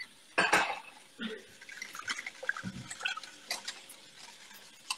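Wire whisk clinking and scraping against a stainless steel saucepan as bechamel sauce is whisked, with a louder clatter about half a second in and scattered small knocks after it.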